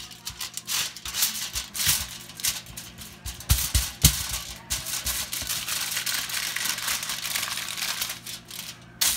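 Hands pressing and patting ground beef into a burger patty: an irregular run of crackling, rustling clicks.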